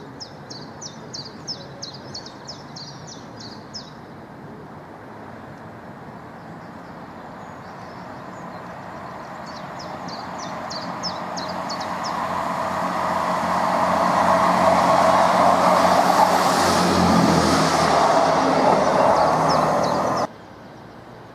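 Class 158 diesel multiple unit approaching and passing close: its diesel engine and wheels on the rails grow steadily louder to a peak, then cut off suddenly near the end. Birds chirp in quick trills during the first few seconds.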